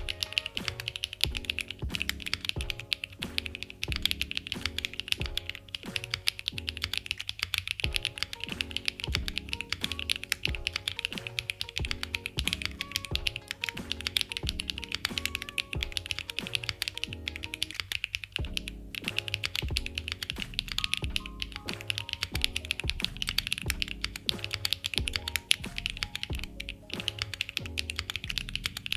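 Continuous fast typing on a custom mechanical keyboard fitted with Kailh BCP switches, a dense run of key clacks, over background music.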